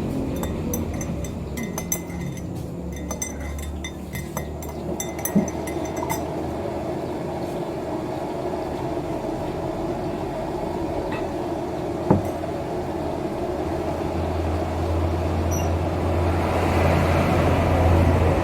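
Ice and a spoon clinking in a glass of iced young-coconut drink as it is finished, in light tinkles with a few sharper clinks. Underneath is a steady low engine rumble that grows louder near the end.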